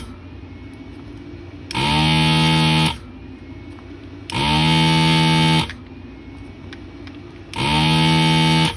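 Anesty ZD-915 desoldering gun's built-in vacuum pump buzzing in three bursts of a little over a second each, about every three seconds, as the trigger is pulled to suck molten solder out of the IC pins one after another. A low steady hum carries on between the bursts.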